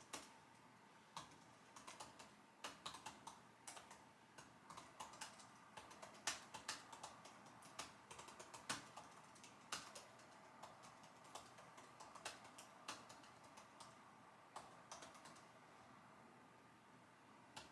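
Computer keyboard typing: soft keystrokes in irregular runs, fastest in the first half, thinning out with pauses toward the end.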